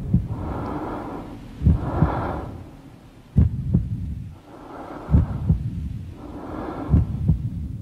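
A slow heartbeat sound effect: double thumps, lub-dub, about every one and three-quarter seconds. Between the beats a person breathes in and out.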